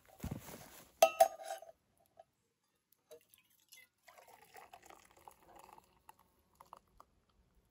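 Liquid pouring briefly, then two sharp clinks of cookware about a second in, ringing briefly. Faint handling sounds follow.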